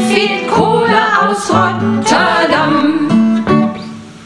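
A song sung to strummed guitar, dying away in the last half-second as the song ends.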